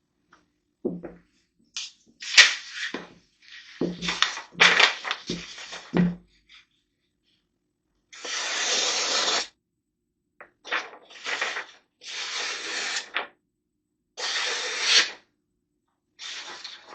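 Handling knocks and clicks, then about five slow swishing strokes of a knife blade drawn along a strop, each lasting about a second, to put the final polished edge on the blade.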